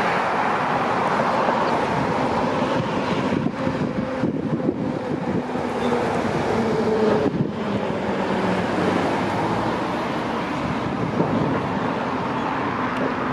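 Steady road traffic noise, vehicles passing nearby.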